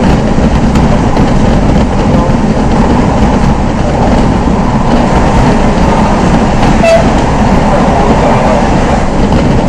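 Steady running noise heard inside a Z 5600 double-deck electric multiple unit travelling at speed: wheels rolling on the rails and the car's own rumble, strongest in the low end.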